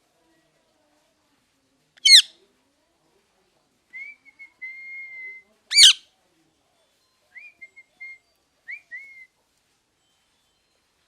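Ringneck parrot calling: two loud, short shrieks about two seconds and six seconds in, with softer steady whistles between them and a few short whistles after.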